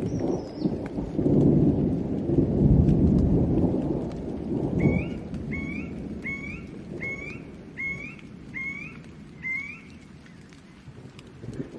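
Thunder rumbling over steady rain, loudest in the first few seconds and then dying away. Midway a bird calls seven times, a short rising note about every three-quarters of a second.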